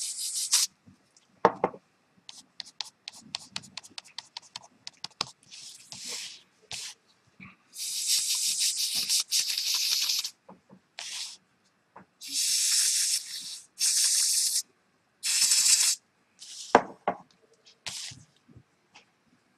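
Aerosol spray can hissing in several separate bursts of one to two seconds each, after a run of rapid rattling clicks. Two short knocks come in between.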